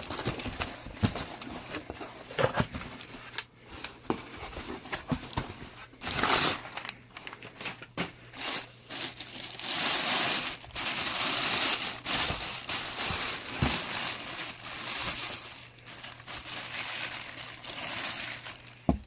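Packing material being pulled out of a shipping box and handled: irregular crinkling and rustling with scattered sharp crackles, louder in several stretches.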